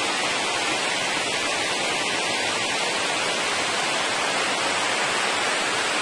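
Cola de Caballo waterfall, a tall fall pouring onto rocky cascades: a steady, even rush of falling water.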